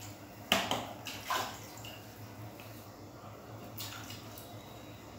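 Water splashing in a few short bursts as a rabbit is washed by hand. The loudest splash comes about half a second in, with smaller ones after about a second and near four seconds.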